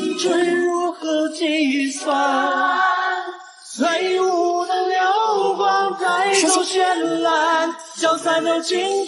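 A woman's voice singing a slow ballad melody, drawing out long notes with vibrato. The singing breaks off briefly about three seconds in, then goes on.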